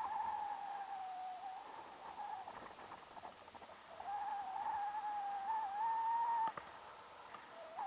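Paragliding variometer's electronic tone: one held note that wavers and steps slightly in pitch, fading a little about a second and a half in, returning about four seconds in, and cutting off sharply about six and a half seconds in before coming back right at the end.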